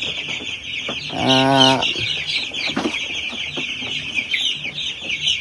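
Many week-old chicks peeping constantly, a dense chorus of rapid high chirps, with a short low hum about a second in.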